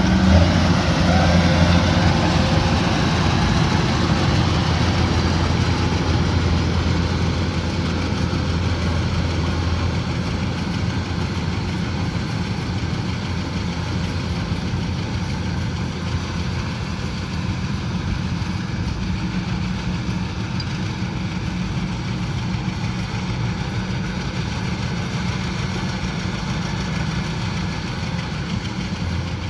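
Kubota DC-105X combine harvester's diesel engine running steadily with a deep hum and mechanical clatter. It fades gradually over the first dozen seconds, then holds steady.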